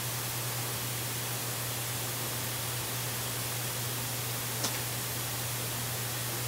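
Steady static hiss from a live nest-cam audio feed, with a low steady hum underneath and one short sharp click about four and a half seconds in.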